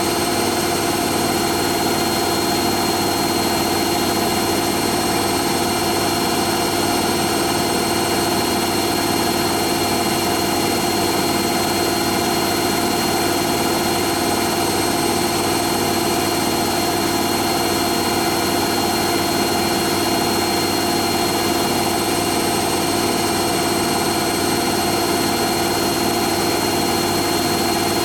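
Hoover Nextra HNL71463D washing machine in its final spin, the drum turning steadily at high speed with an even, unchanging hum and whine.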